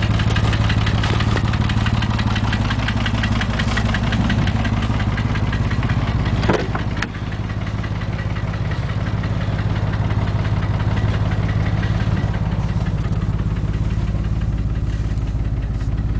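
Porsche 911 (996) flat-six engine idling with a fast, even knocking clatter: the engine knock the owner is recording. About six and a half seconds in there is a brief sharp sound and the level dips slightly, after which the engine runs on with the clatter less pronounced.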